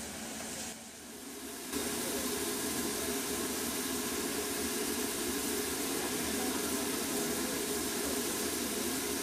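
Steam locomotive blowing off steam: a steady hiss that comes in about two seconds in and holds without a break.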